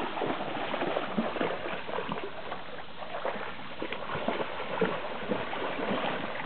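Shallow flood water splashing and sloshing as Newfoundland dogs and people in wellies wade through it: a continuous wash broken by many small irregular splashes.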